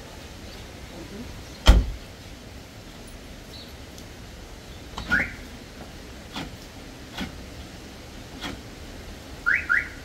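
A series of sharp knocks at irregular intervals, the loudest about two seconds in; a few are joined by short rising squeaks, two of them close together near the end.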